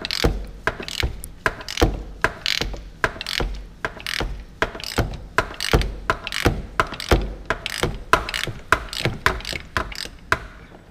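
Ratchet wrench with a 36 mm socket clicking as its handle is swung back and forth, loosening the oil filter housing. The clicks come in quick, uneven bursts and stop shortly before the end.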